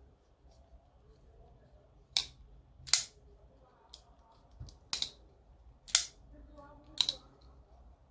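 HK AXIS folding knife being opened and closed by hand, its blade and AXIS lock snapping into place with sharp metallic clicks about once a second, five of them loud and a couple fainter.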